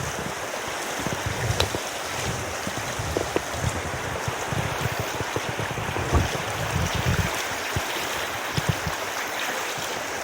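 Mountain stream rushing steadily, with irregular low thumps and a few light knocks over it.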